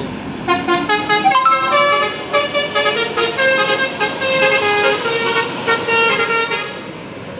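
Mercedes-Benz OH 1526 coach's multi-tone musical air horn (an Indonesian 'telolet' horn) playing a tune of stepping notes as the bus pulls away, fading out near the end.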